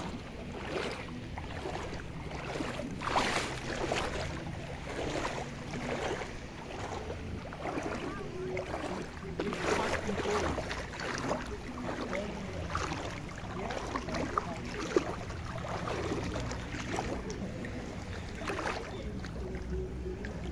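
Shallow seawater sloshing and splashing in a rough, steady rhythm, as of someone wading through it, over a low rumble.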